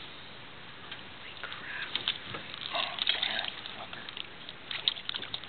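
Scattered light splashes and short knocks from a hooked northern pike thrashing beside a boat as it is being landed by hand, with a quick cluster of sharp ticks near the end.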